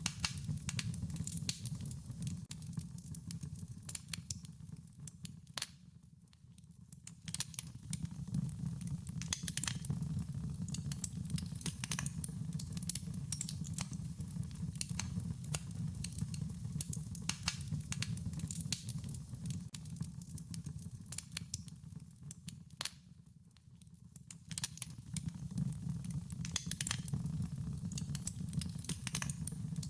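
Wood fire crackling, with frequent sharp pops and snaps over a steady low rumble of flames. The sound dips briefly about six seconds in and again about twenty-three seconds in.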